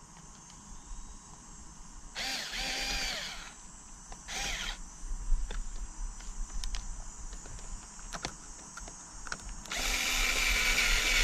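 Power drill running in three short bursts: one about two seconds in, a brief one a second later, and a longer one near the end. Each has a whine that rises in pitch as the motor spins up. Small clicks of parts being handled come in between.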